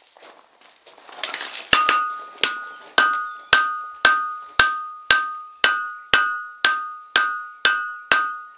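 Hand hammer striking down on the end of a red-hot steel bar clamped upright in a post vise, upsetting it to thicken and widen the end: about fourteen steady blows, roughly two a second, starting a little under two seconds in, each with a short metallic ring.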